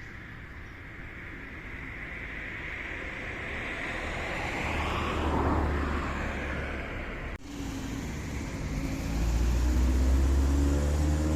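A car passing by, growing to its loudest about halfway through and then fading. After an abrupt cut, another vehicle's engine hum comes close, its pitch rising near the end.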